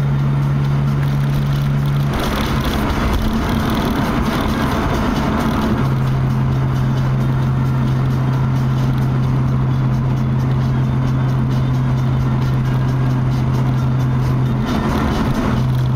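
Nissan Skyline R32 GT-R's twin-turbo straight-six at steady cruise, heard inside the cabin as a steady low drone over road and tyre noise. The drone breaks off about two seconds in, when the noise gets rougher, and settles back a few seconds later; it breaks once more near the end.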